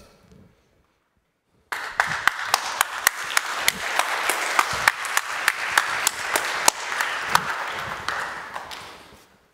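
Audience applauding, many hands clapping at once. It starts suddenly about two seconds in after a brief silence and dies away near the end.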